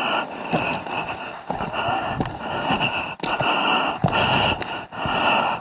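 Dirt bike ridden over a rough trail: the engine revs up and down, with repeated knocks and scrapes from the terrain and wind noise on the camera microphone.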